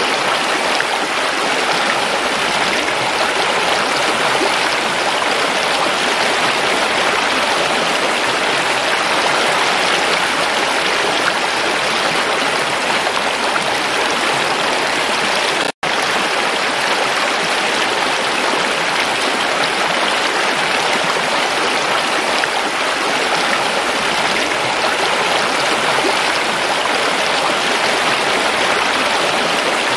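Shallow stream flowing over rocks: a steady, even rush of water. The sound drops out for a split second about halfway through.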